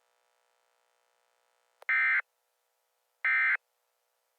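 Two short, harsh data bursts of an Emergency Alert System SAME end-of-message code, about a second and a half apart. They start about two seconds in, after near silence and a small click. They mark the end of the alert message.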